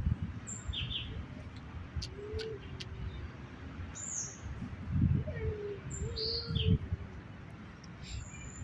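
Birds calling: scattered short high chirps, with a lower wavering call twice in the middle, over a low rumbling noise.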